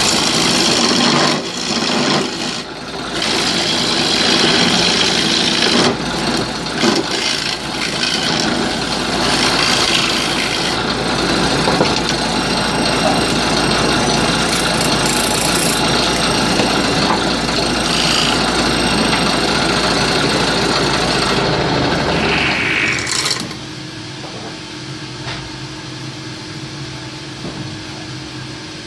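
Hand-held gouge cutting into a wooden disc spinning on a wood lathe: a loud, rough scraping hiss of the cut over the lathe's motor. About three-quarters of the way through the cutting stops, leaving the lathe running with a steady hum.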